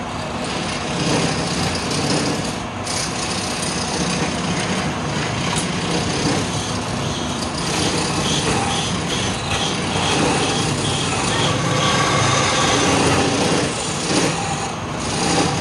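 Motor-driven wood lathe running, with a hand-held chisel cutting a spinning wooden spindle: a steady, rough cutting noise over the low hum of the motor.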